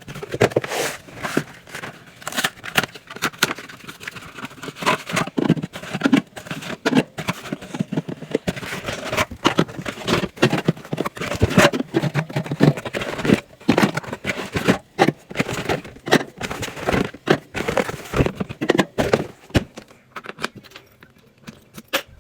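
Drink cans and bottles being handled and set onto fridge shelves, sped up: a dense, quick run of clinks, knocks and scrapes that thins out near the end.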